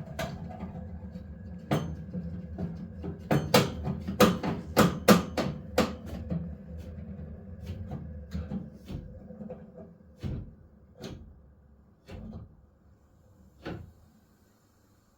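Central-heating boiler pipework banging: a run of loud knocks over the steady low hum of the circulating pump, thickest in the middle, with sparser knocks later as the hum dies away. It is the sign of overheating water with nowhere to flow: the pump runs while both zone valves stay closed, which the owner puts down to an electrical fault.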